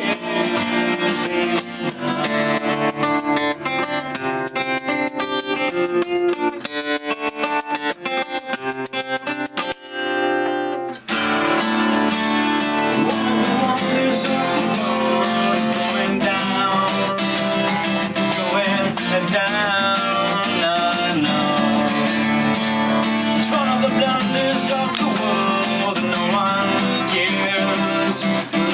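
Instrumental passage of an unplugged rock band: plucked and strummed acoustic guitars playing with no singing. There is a brief break about ten seconds in, then the band comes back in fuller.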